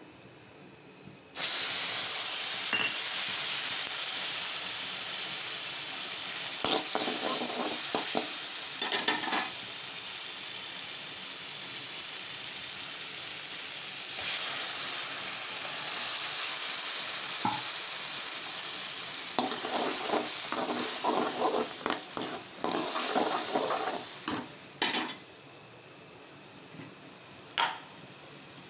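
Hot oil sizzling in a metal pot with dried red chillies and turmeric, starting suddenly about a second in. A spoon stirs and scrapes the pot in two stretches. Near the end the sizzling dies down, with green mint paste now in the pot.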